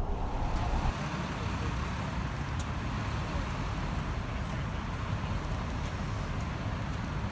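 Steady road traffic noise from cars passing on a multi-lane street, with a few faint clicks over it.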